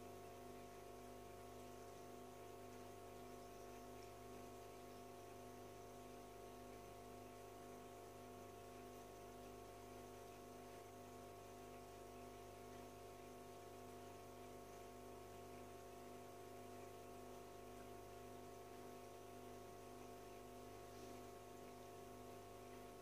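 Near silence with a faint, steady hum from the running aquarium equipment, unchanging throughout.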